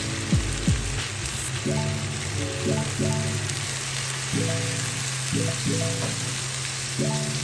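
Beef strips sizzling in a hot stainless-steel frying pan as warm water is poured in and bubbles around the meat, with background music.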